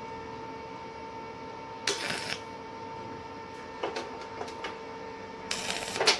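Electric arc tack welds on stainless steel: two short crackling bursts of arc, one about two seconds in and a longer one near the end, with a few faint clicks between and a steady hum underneath.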